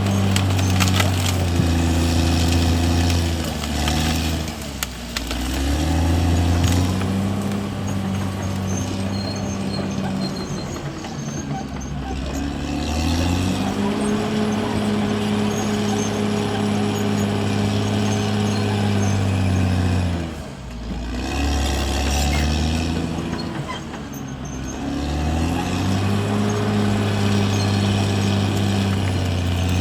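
CAT D6R XL bulldozer's diesel engine working hard, its speed dipping and picking back up four times.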